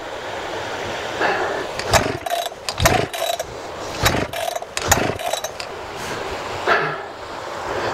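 Two-stroke chainsaw being pull-started: the recoil starter cord is yanked again and again with quick rasping whirrs, and the engine fails to catch.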